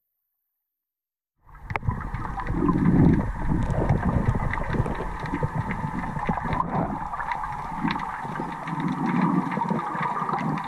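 Muffled underwater sound picked up by a GoPro in its waterproof housing as it moves through the water: a low rumbling swish with scattered sharp clicks, starting after about a second and a half of silence.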